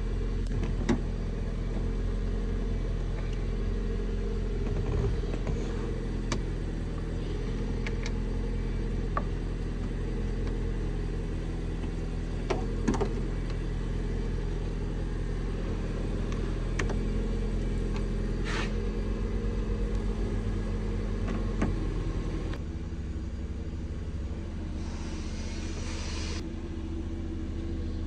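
Car engine idling steadily, a low even hum with a few light clicks and knocks over it. About 22 seconds in the hum changes and drops slightly.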